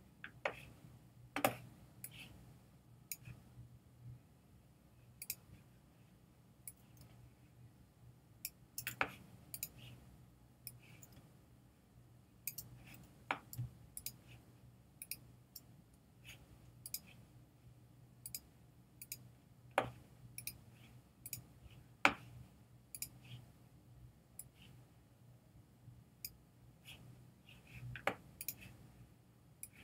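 Scattered clicks of a computer pointing device, singles and a few quick pairs at irregular intervals, over a faint low steady hum.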